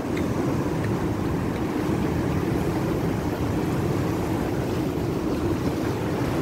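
Sea surf breaking and washing over a rocky shore, with wind blowing across the microphone: a steady low noise throughout.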